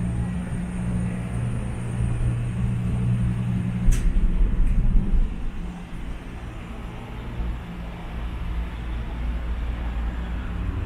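Gondola cabin running along its cable: a steady low hum and rumble heard inside the cabin, with a sharp click about four seconds in, followed by a brief deeper rumble.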